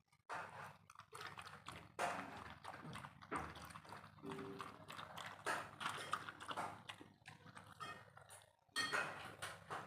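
Dog lapping milk from a bowl in quick, irregular wet laps.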